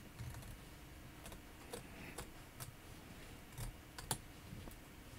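Small scissors snipping excess green appliqué fabric close to the stitch line: a run of faint, irregular snips, the loudest about four seconds in.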